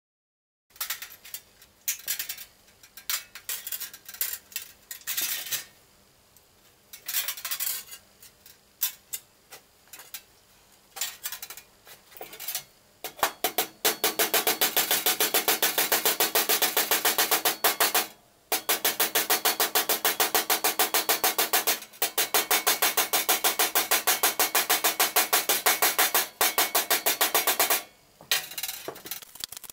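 Hand hammer striking the edge of a sheet-steel Porsche 356 wheel arch panel: scattered, uneven taps at first, then from about halfway a fast, even run of blows like a drum roll, broken by two short pauses.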